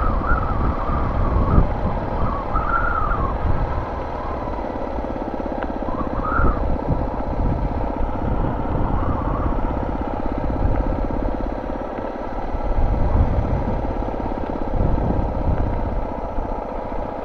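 Suzuki DR650's single-cylinder four-stroke engine running steadily as the motorcycle is ridden along hard sand, with a rough low rumble of wind on the microphone.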